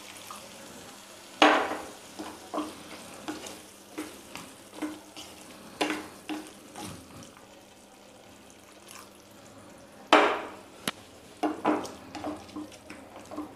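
Wooden spatula stirring a pan of onion-tomato masala loosened with water, scraping and knocking against the pan over a low sizzle. The loudest knocks come about a second and a half in and about ten seconds in.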